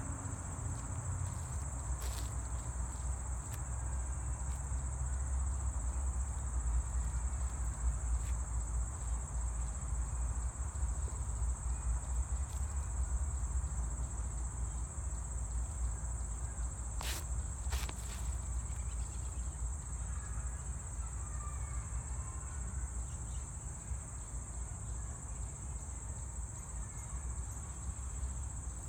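Steady high-pitched insect chorus over a low rumble, with a couple of faint clicks about halfway through.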